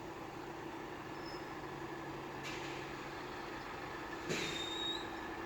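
A Class 70 diesel locomotive, its GE V16 engine running, approaches while running light, a steady drone. A short high squeal comes about four seconds in.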